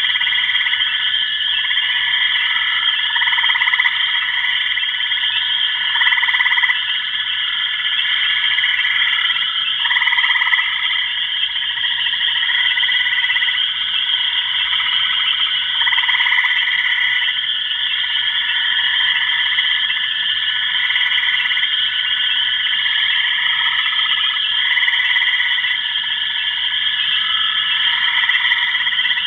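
A dense, steady chorus of high trilling calls, layered in several pitches, with softer calls swelling in and out every second or two.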